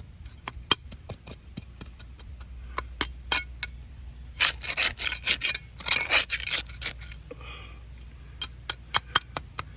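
Fill being scraped and packed into the holes around a row of bricks: gritty scrapes and many short sharp ticks, with two longer scraping strokes about halfway through.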